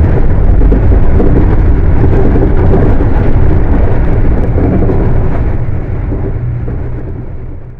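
Volkswagen 17-230 OD bus's diesel engine running loud, a heavy low rumble that fades away over the last few seconds.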